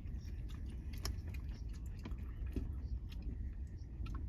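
A person eating noodles: chewing, with scattered small clicks at irregular intervals, over a steady low rumble.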